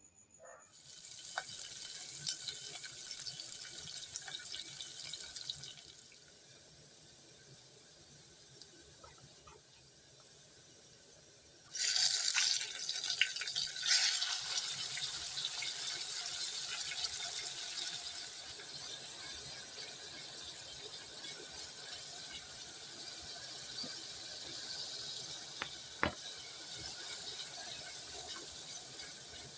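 Water running from a tap into a sink, as when food is washed for cooking. It starts about half a second in, runs on more quietly for a while, then gushes louder for a couple of seconds before settling into a steady flow. A single sharp click comes near the end.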